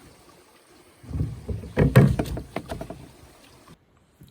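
Wooden knocks and dull bumps of a canoe paddle against the canoe's hull, a cluster lasting about two seconds and loudest in the middle, then the sound cuts off abruptly.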